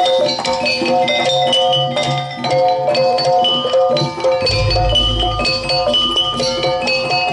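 Instrumental campursari music in jaranan style: pitched metallic notes repeat over drums and percussion, with a deep low boom about four and a half seconds in.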